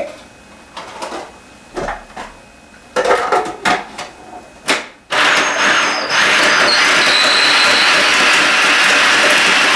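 Knocks and clatter as the food processor is handled, then, about five seconds in, the food processor's motor starts abruptly and runs loud and steady, chopping dates fine.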